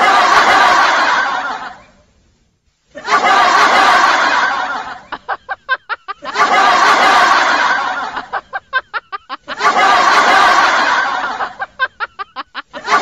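A laugh sound effect, looped: three times over, a loud breathy burst of laughter runs into a quick staccato run of 'ha-ha-ha' pulses that fades away.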